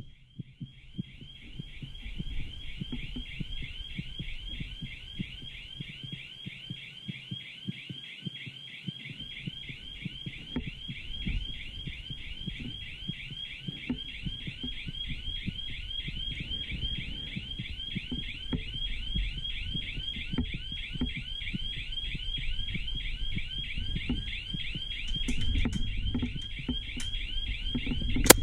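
Electronic alarm sounding, a rapid, evenly repeating chirping tone, with footsteps and gear knocks of someone moving on stairs underneath.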